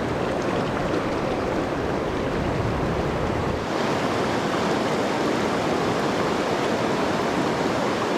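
Steady rush of a fast-flowing mountain river's current, with the deep rumble easing a little over three seconds in.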